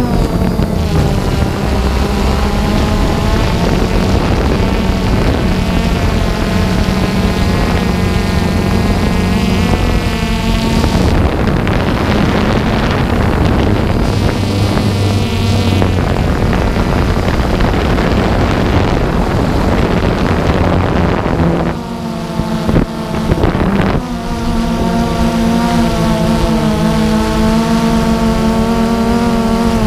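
DJI Phantom 2 quadcopter's motors and propellers buzzing in flight, the pitch drifting up and down with throttle, with wind noise on the microphone at times. The sound dips and changes briefly a little past the two-thirds mark, then settles back to a steady buzz.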